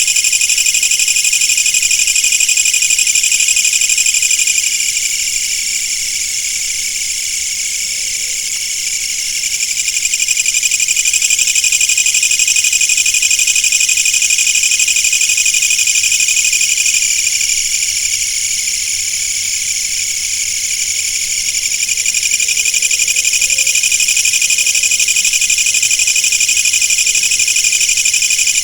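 Insects trilling: a dense, steady, high-pitched buzz with a very fast pulse, easing off in loudness twice, about a fifth and two-thirds of the way through.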